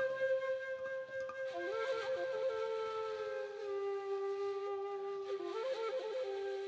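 Flute music in a raga: long held notes joined by short bending slides and quick ornaments, with a second held tone often sounding beneath the melody.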